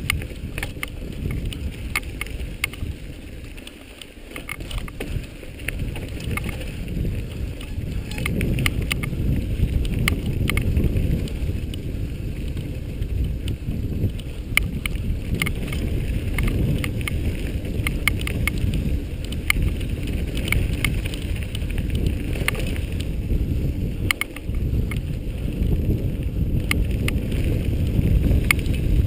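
Wind buffeting the microphone of a moving action camera, a steady low rumble with frequent small clicks and rattles as the camera jostles along a rough dirt trail. The rumble drops briefly about four seconds in.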